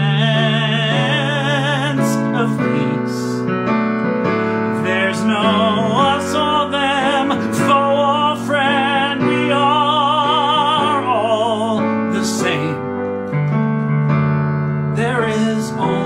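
A man singing long held notes with wide vibrato over piano-style keyboard chords.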